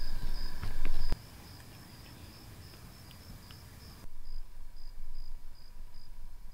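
Crickets chirping at night: a steady high pulsing chirp about three times a second. Under it, a low rumble and a few sharp clicks in the first second.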